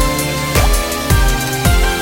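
Background music with a heavy bass beat, about two beats a second.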